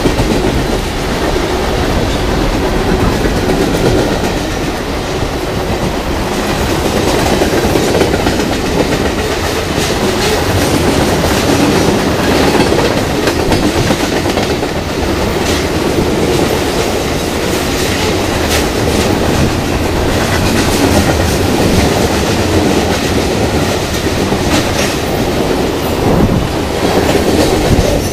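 Freight cars of a long mixed freight train rolling past close by: a steady rumble with the clickety-clack of wheels over rail joints that keeps going throughout.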